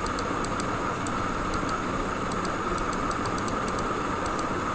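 Steady background hiss of the recording room and microphone, with faint, irregularly spaced high clicks.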